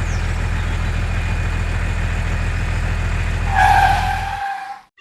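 An engine running steadily, which stops abruptly about four and a half seconds in. A short higher tone sounds just before it stops.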